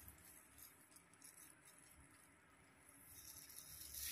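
Near silence, with faint rustling and small ticks from plastic-gloved hands and a tail comb working through hair, a little louder near the end.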